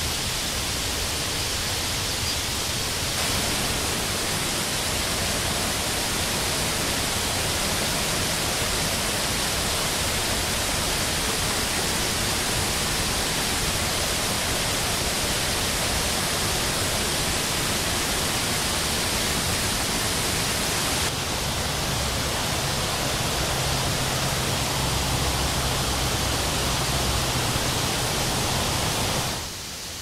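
Steady rushing of a mountain stream: a dense, even hiss that shifts a little in level a few seconds in and again after about twenty seconds, then drops off shortly before the end.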